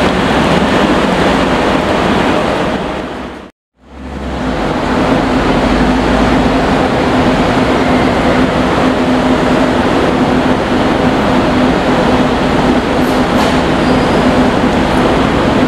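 Mercedes-Benz SLR McLaren's supercharged V8 running loudly as the car rolls slowly away. It is a steady, dense rumble that drops out for a moment about three and a half seconds in, then carries on with a steady hum.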